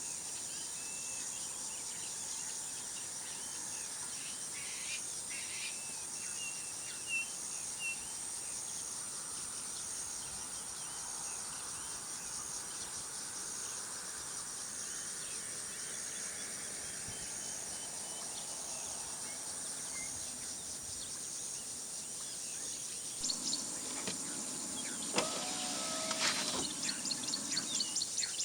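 Steady high-pitched insect drone on a hot day, with a short chirp repeating about once a second. Near the end comes a brief whirring, mechanical-sounding noise, then a fast pulsing call.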